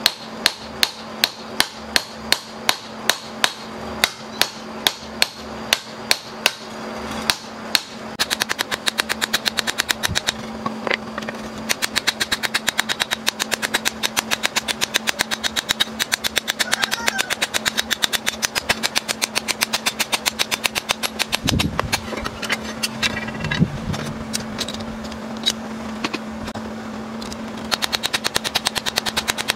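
Hand hammer forging a red-hot steel hoe blade on a flat steel block anvil: about three blows a second at first, then a fast, even run of lighter blows from about eight seconds in. A steady hum runs beneath.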